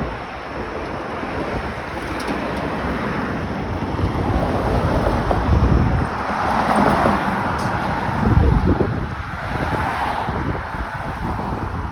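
Wind buffeting the microphone in gusts over a steady rush of street traffic.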